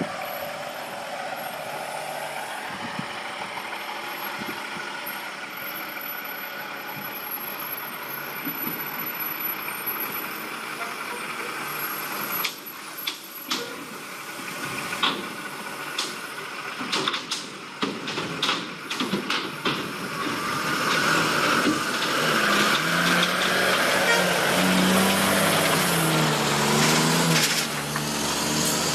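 Semi truck engine running as it drives onto a floating pontoon, with a string of sharp clanks and knocks from its wheels on the ramp plates and deck, in the middle stretch. Near the end a louder, steady truck engine sound takes over.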